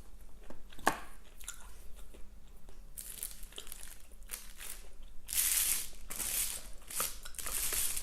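Close-miked eating: chewing and crunching of fast food, with a sharp click about a second in and several louder crisp bursts later on.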